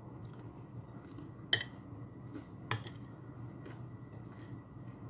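Metal fork and spoon clinking and scraping against a plate while eating, with two sharp clinks, about a second and a half in and just before the three-second mark.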